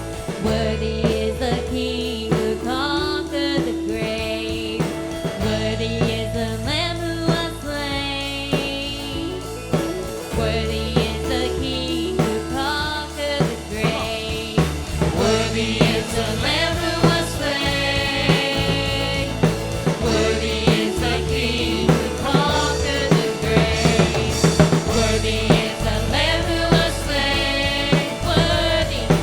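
Contemporary Christian worship song: a singing voice over a full band with drums and sustained low bass notes.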